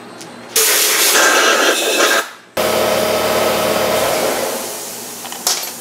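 Compressed-air blow gun hissing in two long blasts, blowing out the freshly brazed chainsaw muffler. The first starts about half a second in; the second follows a brief break and tapers off near the end.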